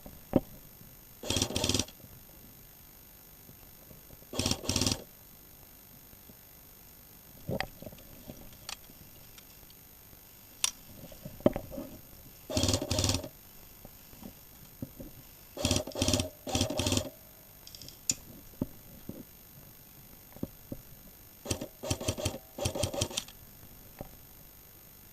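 Airsoft electric guns firing short bursts of automatic fire, each about half a second long and a few seconds apart, coming faster near the end. Single sharp clicks come between the bursts.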